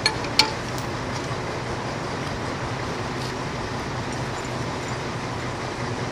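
A diesel engine idling steadily, with two sharp metallic clinks in the first half-second as lifting chains are handled on concrete sleepers.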